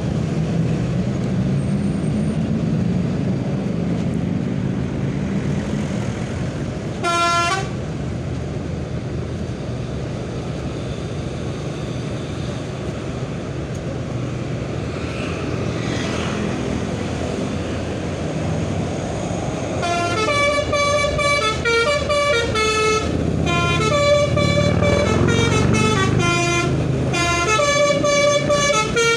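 Telolet horn, the Indonesian multi-tone musical horn of a truck or bus, over the low rumble of the vehicle's engine. One short horn note about seven seconds in, then from about two-thirds through the horn plays a quick tune of changing notes, over and over.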